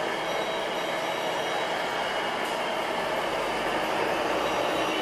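Radio-controlled model trucks running, their electronic sound modules playing diesel truck engine sounds as a steady mixed noise.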